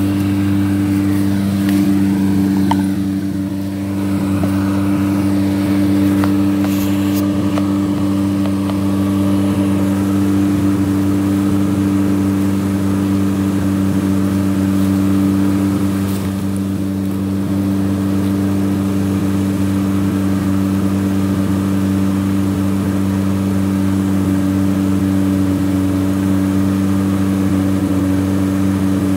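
Vehicle engine idling at a steady, unchanging pitch.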